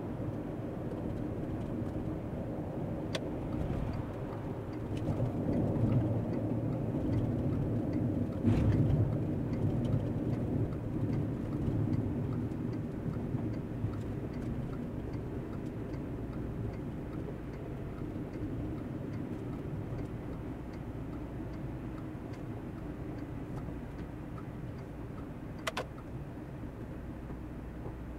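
Steady road and engine rumble inside a Volkswagen Touareg 3.0 TDI driving with a caravan in tow, swelling a little for a few seconds early on. A few sharp clicks sound over it, the clearest near the end.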